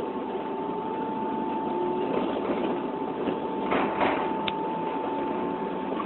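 Steady running noise inside a vehicle, with one constant tone throughout and a couple of brief knocks about four seconds in.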